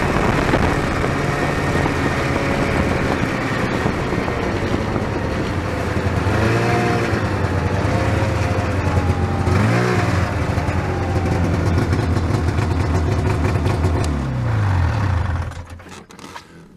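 Arctic Cat Jag Longtrack snowmobile's two-stroke engine running under way, rising and falling in pitch with the throttle about halfway through. Near the end the engine note falls and dies away to quiet.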